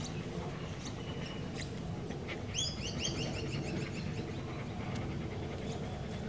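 Wild bird calls: scattered short chirps, and about two and a half seconds in a sharp call followed by a quick run of short notes stepping down in pitch, over a steady low background rumble.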